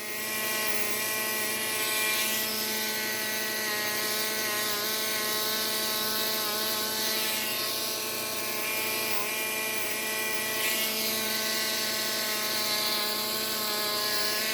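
Bucktool slow-speed belt sharpener running steadily, with a hiss that swells and fades as a serrated knife's edge is ground on the abrasive belt.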